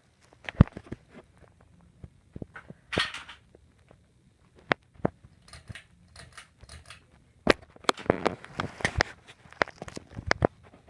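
Irregular sharp clicks and knocks, with two short stretches of crackling rustle, about three seconds in and again around eight to nine seconds, over a faint low hum.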